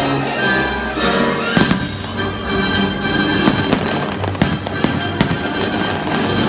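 Fireworks bursting over loud orchestral show music: a sharp bang about one and a half seconds in, then several more between about three and a half and five and a half seconds.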